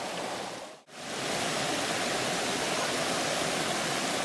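Shallow stream rushing over rocks, a steady hiss of flowing water. It cuts out briefly just under a second in, then the rushing resumes slightly louder.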